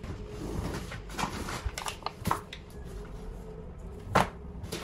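Baking ingredients being set out on a wooden kitchen countertop: a series of light knocks and rustles from packets, a paper flour bag and small jars, with a sharper knock about four seconds in.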